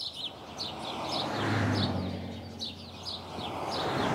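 Small birds chirping, many short falling chirps in quick succession, over outdoor background noise with a low hum that swells and fades.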